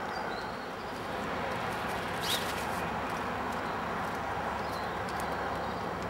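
Steady outdoor background noise with a few faint, short, high bird chirps and a single sharp tick about two seconds in.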